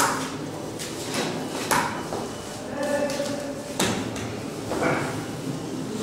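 A few sharp knocks or thuds, spaced unevenly, with a short voice-like sound about three seconds in.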